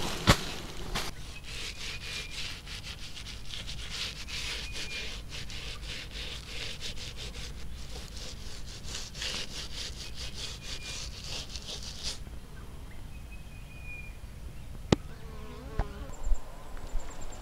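Paintbrush scrubbing a black coating onto a wooden hive leg, a quick run of scratchy strokes that stops about twelve seconds in. After that it is quieter, with a single sharp click.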